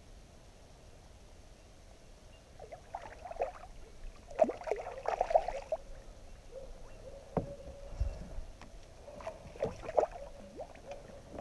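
Hooked bream thrashing and splashing at the surface as it is played to the side of the kayak, in short irregular bursts that begin a couple of seconds in, are strongest around the middle, and come again near the end.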